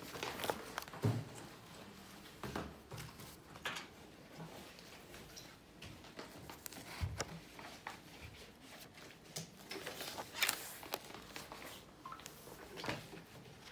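Pages of a spiral-bound sketchbook being flipped and handled: a dozen or so irregular paper rustles and brushes with a few soft knocks, the loudest about ten seconds in.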